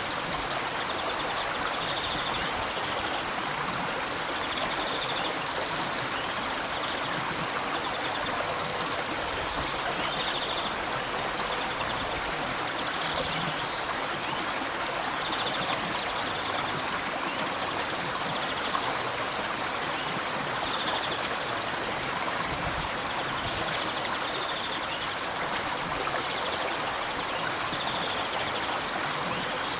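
River water flowing and rushing steadily over rocks, with a faint high chirp every two or three seconds.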